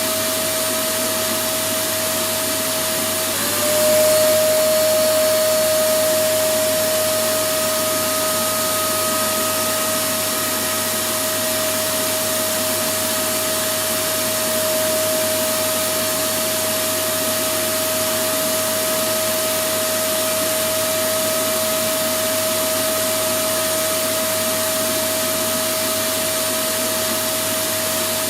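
Electric vacuum cleaner running steadily: a constant motor whine over a rush of air. About three seconds in, the whine briefly dips in pitch and climbs back, and the sound gets a little louder.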